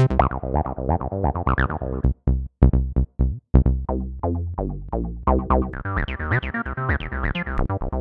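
Image-Line Transistor Bass synthesizer in FL Studio playing its default bass presets one after another: a quick run of short, pitched bass notes, several a second, many with a sweeping change in tone, and a new preset about every two seconds. There are a few brief gaps between about two and three and a half seconds in.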